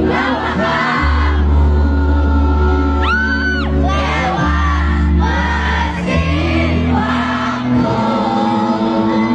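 Music with singing: a song over long held bass notes, with a voice holding long notes and sliding between them.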